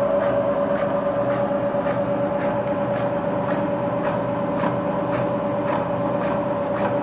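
Milling machine cutting a spline groove in a motorbike shaft with a disc cutter at 95 RPM under power feed: a steady whine of the machine with a scraping cutting noise and a regular pulse about twice a second.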